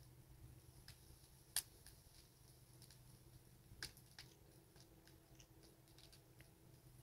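Wood fire crackling softly, with scattered sharp pops from the burning logs; the loudest comes about a second and a half in and another stands out near four seconds.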